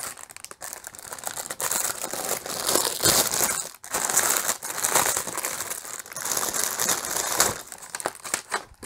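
Clear plastic bags crinkling in irregular bursts as they are handled: a cellophane outer bag full of small plastic bags of diamond painting drills being turned over and smoothed out.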